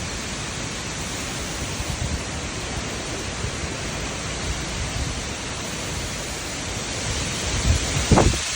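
Tropical-storm wind and rain making a steady rushing hiss. Low rumbling gusts buffet the microphone, the strongest near the end.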